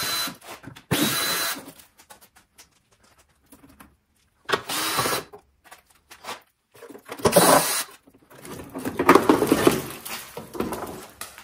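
A handheld power tool, drill-like, run in about five short bursts with pauses between, the last burst the longest.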